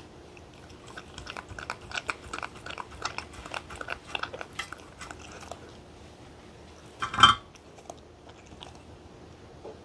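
A dog eating from a stainless-steel tray: a quick, irregular run of wet licking and chewing clicks for about four seconds. A single louder knock comes about seven seconds in.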